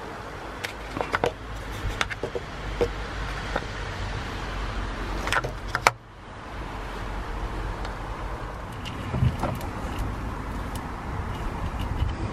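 Scattered clicks and knocks of hands working on plastic and metal parts in a small car's engine bay, over a steady low outdoor rumble. The sound drops off abruptly about six seconds in, then the rumble and occasional knocks resume.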